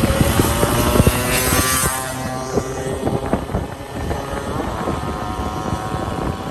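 A motor running steadily, with wind rumbling and knocking on the microphone; a high hiss fades out about two seconds in.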